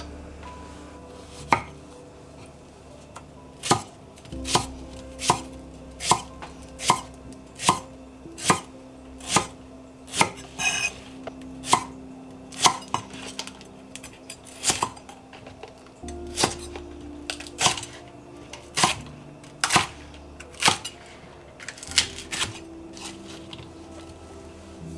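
Kitchen knife slicing a white Japanese long onion (negi) on a cutting board, a sharp knock of the blade on the board a little more than once a second, in a steady rhythm.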